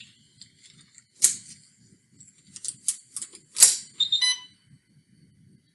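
IV infusion pump being switched on: several sharp clicks and taps, then a short electronic beep a little after four seconds in as the pump powers up.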